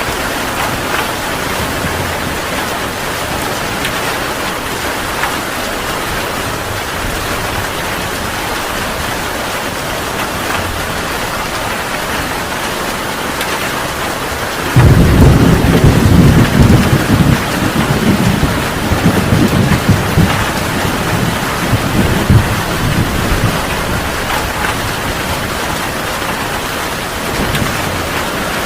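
Heavy rain falling steadily. About halfway through, a loud thunderclap breaks in suddenly and rumbles on for several seconds before dying away, with a faint further rumble near the end.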